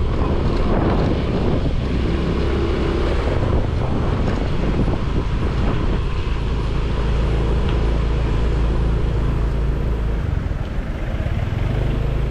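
Small motor scooter's engine running at low road speed, with wind rumbling on the handlebar-mounted microphone. The sound dips briefly near the end as the scooter slows.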